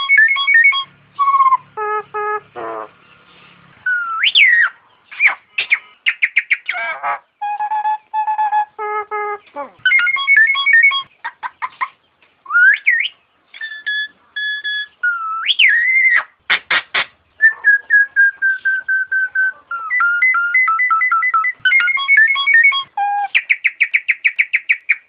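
Nias hill myna calling in a rapid, varied string of loud whistles. It mixes steady pure notes, short rising glides and quick rattling runs of clicks.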